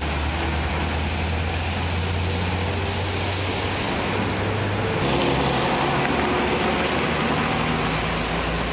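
Road traffic driving through flood water: engines of trucks and cars running low and steady over a continuous wash of water and tyre noise. The sound changes about five seconds in.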